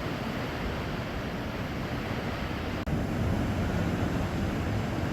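Sea surf washing steadily on the shore, a continuous rushing noise, with a momentary break about three seconds in.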